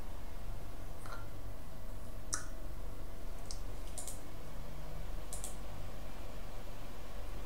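Computer mouse clicks, five short sharp clicks spread across a few seconds, some of them doubled, over a steady low hum.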